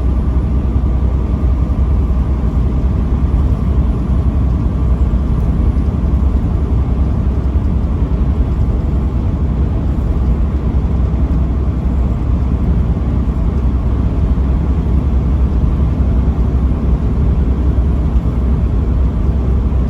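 Steady low rumble of a vehicle driving along, engine and road noise running unchanged.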